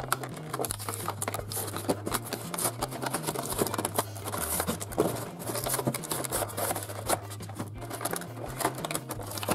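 Stiff clear plastic blister packaging and cardboard being handled and pulled apart, crinkling and crackling irregularly as a toy is taken out of it.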